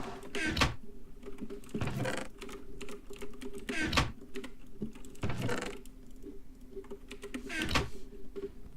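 Computer keyboard typing: a run of quick key clicks, with a louder, fuller key strike every second and a half or two, five in all, over a faint steady hum.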